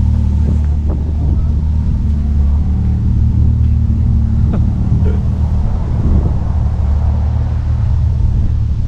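A motor vehicle's engine running steadily at an even, low pitch, with a few faint brief knocks or clicks over it.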